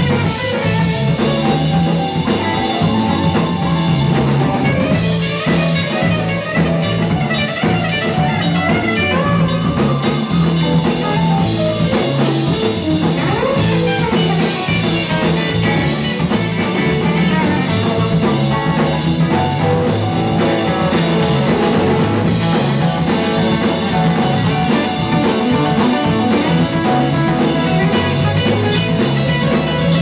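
A live band playing amplified electric guitars, keyboard and drum kit in a steady, loud groove.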